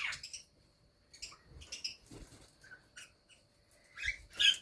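Small parrots calling in short, scattered chirps and squawks, with a louder squawk about four seconds in.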